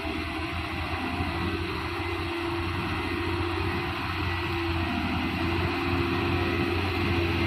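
Heavy truck's diesel engine running steadily under load, growing slowly louder.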